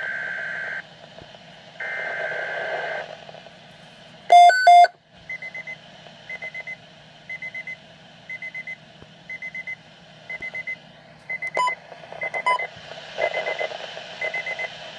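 Weather alert radio sounding an emergency alert. It opens with two buzzy data bursts, then a loud double tone about four seconds in. After that come short, high triple and quadruple beeps repeating about once a second.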